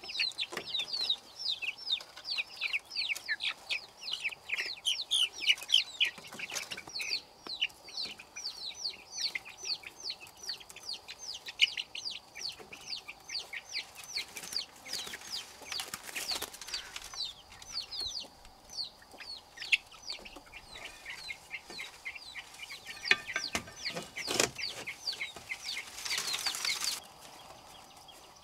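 A group of chicks peeping constantly: many overlapping high, falling peeps every second. A few short bursts of rustling or wing-flapping come among them, the longest cutting off sharply near the end.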